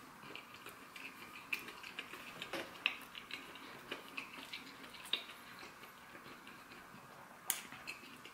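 Close-miked chewing of a slider cheeseburger: irregular, faint wet mouth clicks and smacks, with a few sharper ones.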